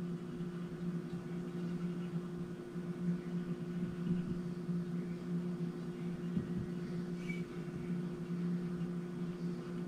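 Steady low hum, with faint rubbing and a few light ticks as fingers slide along the fret ends of a Telecaster's maple neck.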